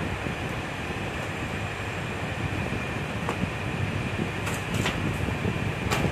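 Steady machine hum of fans or air conditioning in the room. Over it come a few light clicks and taps as amplifier boards and a paper sheet are handled in the metal chassis, the sharpest near the end.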